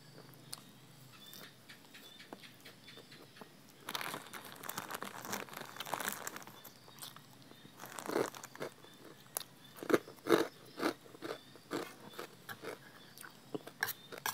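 A person chewing crisp food close to the microphone, crunching pork cracklings and raw vegetables; it is quiet at first, with irregular crunches from about four seconds in.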